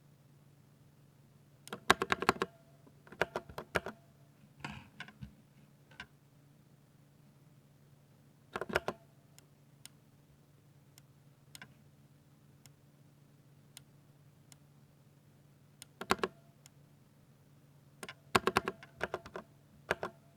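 Typing on a 60% Ducky mechanical keyboard with silver switches: quick bursts of keystrokes separated by pauses, with a few lone key presses in between. A faint steady low hum lies underneath.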